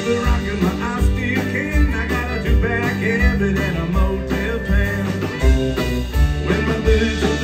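A live country band playing a stretch with no words: fiddle over acoustic and electric guitars and drums, with a steady beat.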